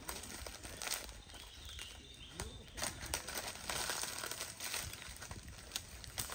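Rustling and crackling of leaves and twigs, with scattered sharp clicks and snaps; no chainsaw is running.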